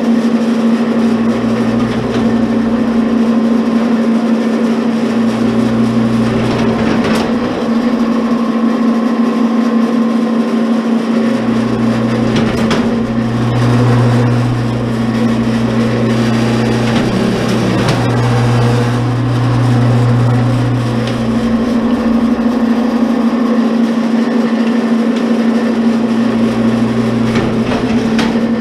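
Commercial electric wire stripper running with a steady motor hum, a deeper hum swelling in and dropping out three times as it takes load.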